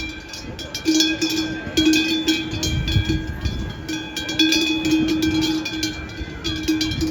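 Large cowbells clanging irregularly, struck again and again as the cows move, each strike ringing on.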